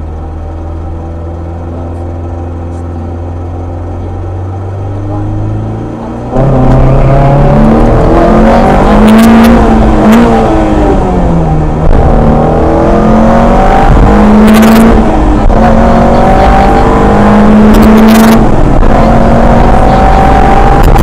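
Rally car engine heard from inside the cabin: a steady low hum while the car waits at the start, rising slightly just before launch. About six seconds in it jumps to full volume as the car launches, and the engine is then revved hard, its pitch climbing and dropping back with each gear change.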